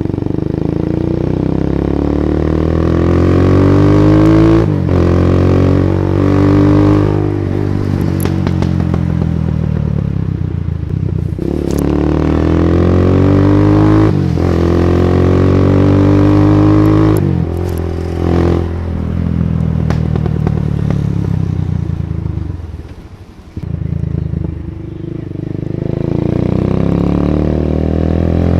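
Carbureted TVS Wego scooter's single-cylinder engine through an Akrapovic slip-on exhaust, revved up and let back down about half a dozen times, the pitch climbing over a few seconds each time. Sharp exhaust crackles come as the throttle closes, the sign of its rich air-fuel mixture.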